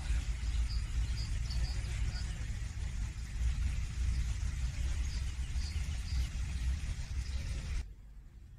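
Outdoor park ambience: a steady low rumble with a few short, high bird chirps over it. Near the end it drops abruptly to a much quieter background.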